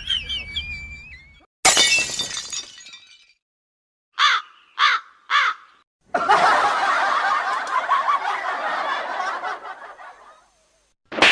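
A string of separate short comedy sound clips with silent gaps between them. A sharp crash rings out for about a second, then come three short pitched calls, then about four seconds of dense, wavering pitched sound.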